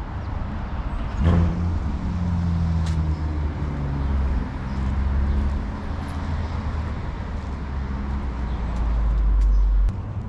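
Street traffic: a motor vehicle passes close by, its engine note falling slowly in pitch as it goes by, over a steady low rumble. A deep rumble swells near the end and cuts off suddenly.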